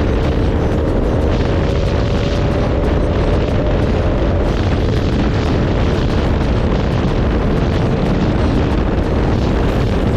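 Motorcycle engine running steadily while riding, its note rising slightly over the first few seconds, under heavy wind noise on the microphone.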